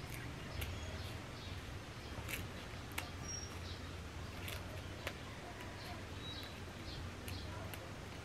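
Small leaves being plucked by hand from thin stems into a plastic bowl: scattered faint clicks and snaps over a low steady hum. Two brief faint bird chirps come through, one about a third of the way in and one past the middle.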